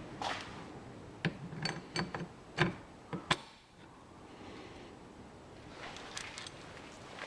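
Small metal parts and tools being handled: a quick run of sharp clinks and knocks, some ringing briefly, then a few lighter clicks near the end.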